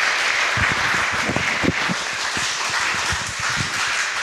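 Audience applauding steadily, with a few dull low thumps mixed in.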